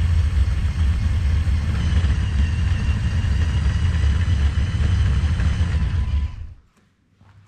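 Remote-controlled Lego Technic Off-Road Buggy driving: its electric motors and gears give a steady whine over a rumbling rattle. The sound cuts off suddenly about six seconds in.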